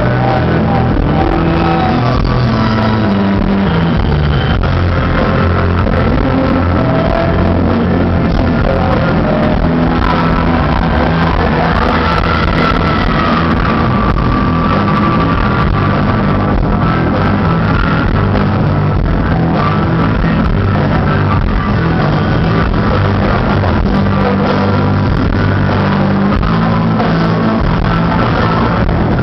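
Rock band playing live and loud: electric guitars, bass and drums.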